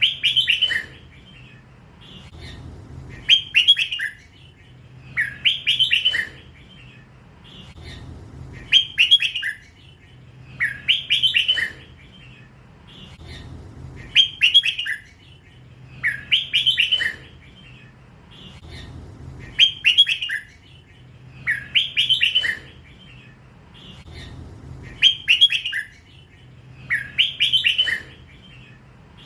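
Young hybrid red-whiskered bulbul, still in its first feathers, singing 'lak wai' phrases. The short, bright phrases repeat about every two to three seconds, a dozen or so in all.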